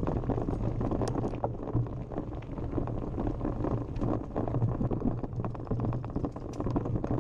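Mountain bike rolling downhill on a rough dirt trail: a steady rumble of knobby tyres over the ground, broken by frequent small rattles and knocks from the bike.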